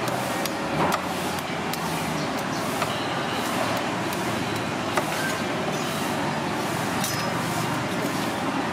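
Steady street traffic noise, with a few short scrapes and taps of a knife shaving the soft husk of a young coconut.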